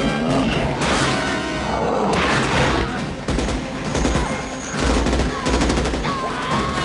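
Action-film battle soundtrack: bursts of rapid automatic rifle fire and booms over a music score, with a fast run of shots in the second half.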